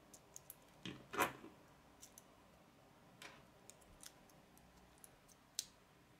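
Plastic K'nex rods and connectors clicking and snapping together in the hands: scattered faint clicks, the loudest about a second in.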